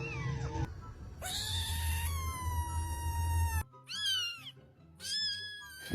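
Domestic cat meowing: one long drawn-out meow, then two shorter rising-and-falling meows, with music underneath.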